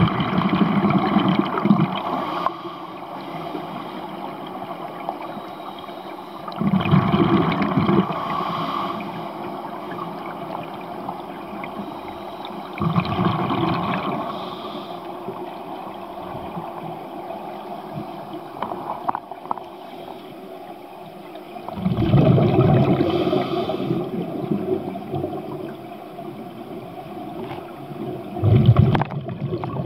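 A scuba diver's regulator heard underwater: exhaled bubbles burble out in five bursts of a second or two, about every six to eight seconds, with a steady hiss of water in between.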